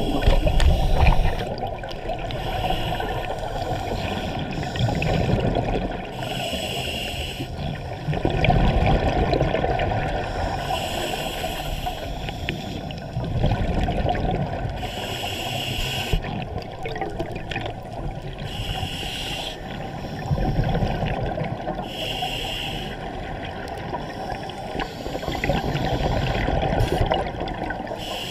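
Scuba divers breathing through their regulators underwater: a short hiss on each inhale and a burst of bubbling on each exhale, repeating about every four seconds over steady low water noise.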